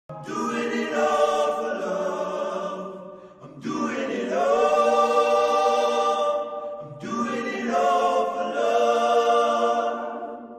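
Choir-like sung music: three long phrases of held notes, each about three seconds, the last fading away near the end.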